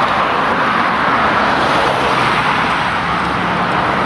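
Steady roar of road traffic, cars driving along a busy road close by, with a faint low engine hum coming in near the end.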